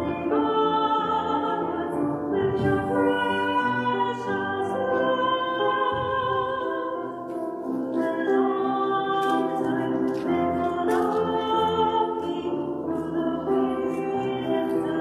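Music with a woman singing a slow melody of long, held notes.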